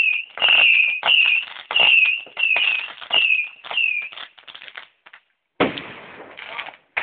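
A whistling firework giving a string of short, shrill whistles, each falling slightly in pitch, about one and a half a second, with crackling under them. The whistles stop after about four seconds and the crackle dies away; after a short pause a sudden loud rush of hiss and crackle starts.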